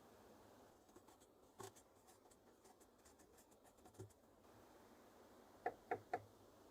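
Faint small clicks and taps of hand work, ending in three quick, sharper clicks close together near the end.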